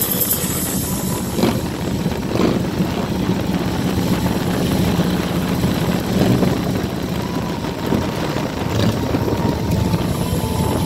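Motorcycle engines running steadily at street speed, mixed with road and wind noise.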